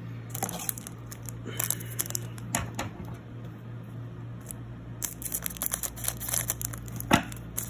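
Foil Pokémon booster pack wrapper crinkling and crackling as it is picked up and handled, in scattered crackles at first and then denser crinkling over the last few seconds.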